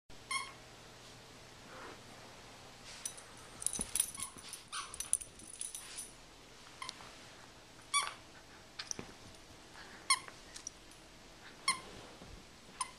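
Two rat terriers playing over a stuffed toy squirrel: a handful of short, high squeaks spread through the clip, with a stretch of clicking and scuffling in the middle.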